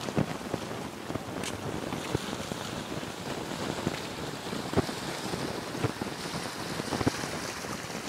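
Wind blowing across the phone's microphone: a steady rush with frequent small crackles.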